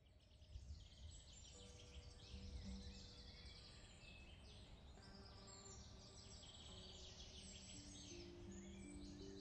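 Faint birdsong from several songbirds, with overlapping trills and chirps, over a low steady rumble.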